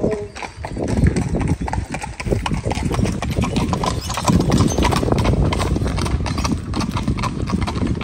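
Hooves of a pair of carriage horses clip-clopping at a walk on a gravel road, a steady run of hoofbeats.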